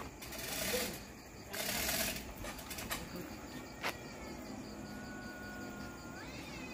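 Two short bursts of rattling noise and a sharp knock, then a cat yowling: one long, drawn-out whining call that holds its pitch and then rises sharply and falls near the end.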